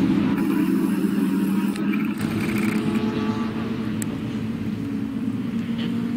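A racing motorcycle's engine running steadily at low revs as the bike rolls slowly across grass. The note drops a little about two seconds in, then holds steady.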